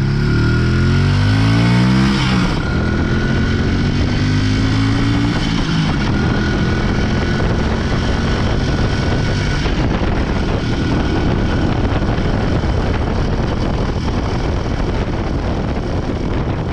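IZh Planeta 4's single-cylinder two-stroke engine pulling under way, rising in pitch for about two and a half seconds, then rising again up to about five seconds after a gear change. After that it is mostly covered by a steady rushing noise of the ride.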